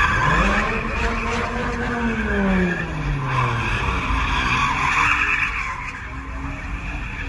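Car tyres squealing and skidding as a sedan spins donuts, its engine revving up over the first two seconds and falling back about a second later, then running on under the steady squeal.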